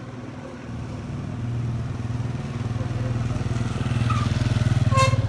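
Small motorcycle engine running at low speed, its steady low pulsing hum growing louder as the bike rides up close.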